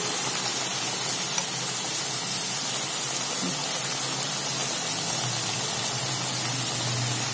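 Stuffed wheat-flour somas deep-frying in a pan of hot oil: a steady, even sizzle.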